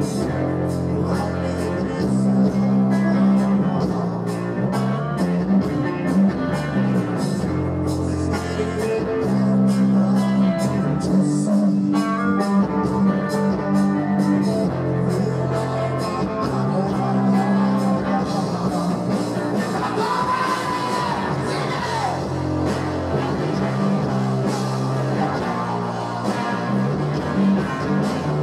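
Rock band playing live through a PA: electric guitars, bass and drums, with singing. The music is loud and unbroken.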